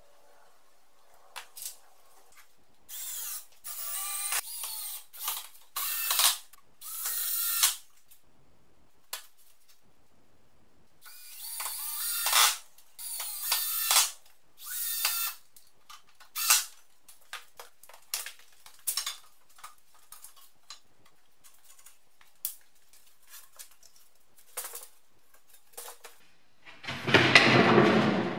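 Cordless drill-driver driving screws into wood in a series of short bursts, with small clicks and knocks between them and a louder, longer burst near the end.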